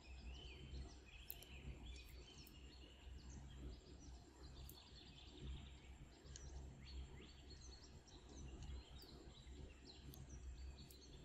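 Near silence: faint room tone with a low hum and small birds chirping faintly now and then in the background.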